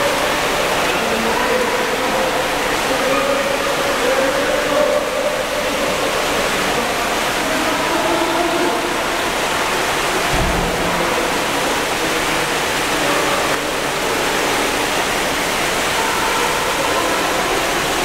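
Indoor swimming pool hall noise: a steady rush of water with faint voices in the background. There is one low thump about ten seconds in.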